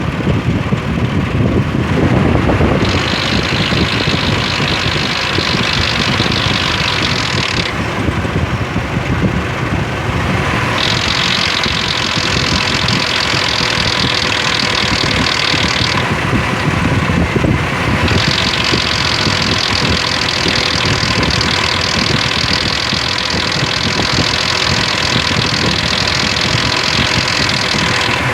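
2003 Ford Explorer engine idling with a rattle from the timing chain. This is the sound of worn timing chain guides and tensioners.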